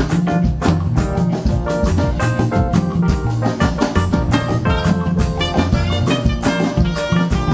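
Gospel praise band playing an instrumental stretch with a drum kit keeping a steady beat under instruments.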